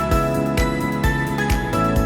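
Background music with a steady beat, about two beats a second, under sustained notes and bright chiming tones.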